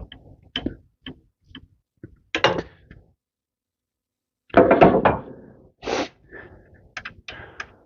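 Hand tools clicking and knocking against metal during work under a truck's hood, in scattered short strikes with a louder clatter about halfway through.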